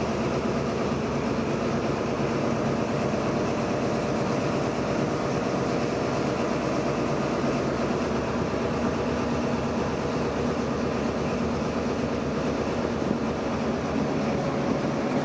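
Class 202 (DR V 100) diesel-hydraulic locomotive under way, its diesel engine running steadily at a constant pitch over the rolling noise of wheels on the rails.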